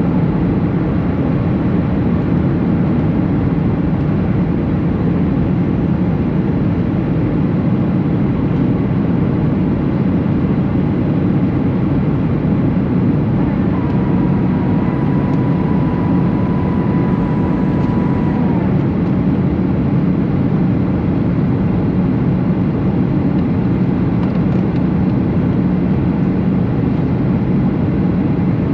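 Steady engine and airflow noise inside the cabin of a Boeing 737 in flight. A single steady high tone sounds for about four seconds midway through and stops.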